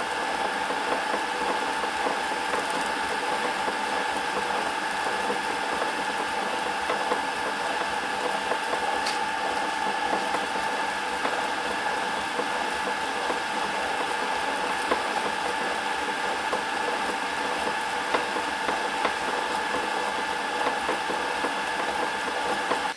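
Small lathe running steadily with a constant whine from its motor and drive, while a 2.3 mm drill bit in the tailstock chuck bores into the spinning acetal rod.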